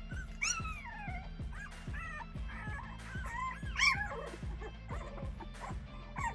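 Boston Terrier puppies whimpering and yipping, a run of high, wavering whines, the loudest just before the four-second mark. Background music with a steady beat plays underneath.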